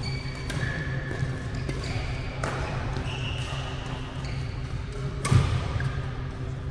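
Badminton play: sharp racket strikes on the shuttlecock and short high squeaks of court shoes on the sports floor, over a steady low hum. The loudest sound is a thump about five seconds in.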